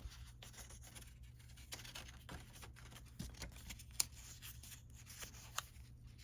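Faint rustling and a few small sharp clicks of hands rolling craft material, over a steady low hum.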